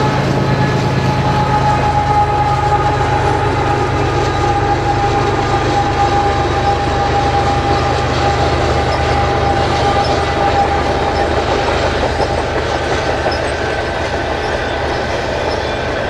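Mid-train diesel locomotive of a freight train passing close by, its engine rumble fading over the first couple of seconds. Tank and hopper cars follow, rolling past with wheels clicking over the rail joints. A steady high wheel squeal runs for several seconds in the middle.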